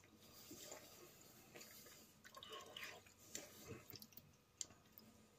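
Near silence with faint, soft, wet sounds of a metal spoon stirring saucy pasta in a bowl, and a single light click near the end.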